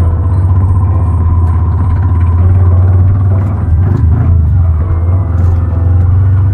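Motorcycle engine running steadily while being ridden, a continuous low throb.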